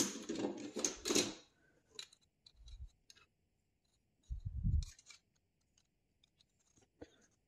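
Hard plastic GraviTrax marble-run tower parts clattering and clicking as they are picked up and handled, with scattered small clicks and two dull low bumps a few seconds in.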